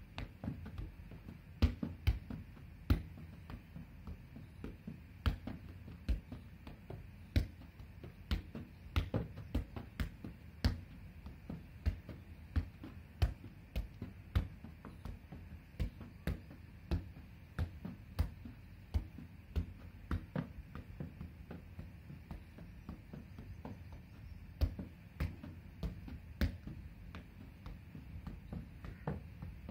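Soccer ball being juggled on the knees: a long run of dull taps as the ball strikes the knee, about one or two a second.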